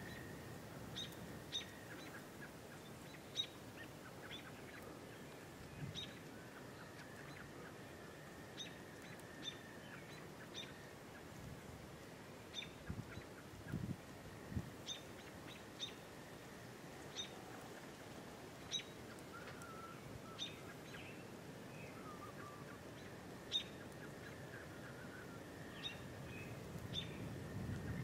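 Birds chirping: short, sharp, repeated calls about once a second over a faint steady background, with a couple of soft low thumps about halfway through.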